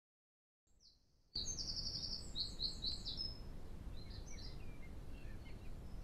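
Songbird singing: a quick run of high, sweeping notes starting about a second and a half in, then softer chirps, over a steady low outdoor background noise.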